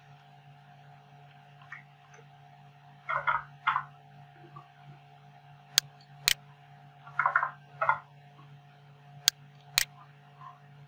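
Computer keyboard keys tapped in two quick runs, with sharp single mouse clicks between and after them, over a steady low hum.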